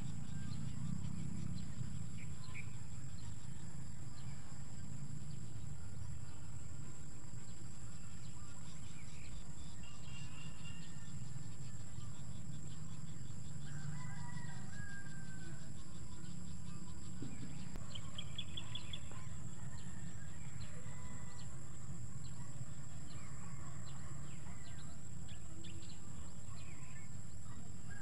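Rural outdoor ambience: scattered short calls from birds and chickens over a steady low rumble.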